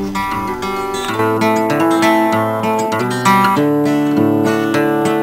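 Background music played on guitar, a run of plucked and strummed notes.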